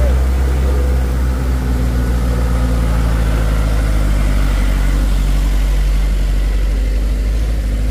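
Light dump truck's diesel engine running at low, steady revs as the truck drives slowly past close by.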